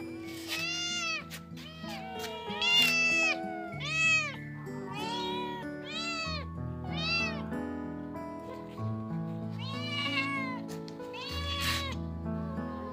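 Hungry kittens meowing again and again to beg for food, each meow rising then falling in pitch, with a pause of a couple of seconds before the last two. Background music with held bass notes plays underneath.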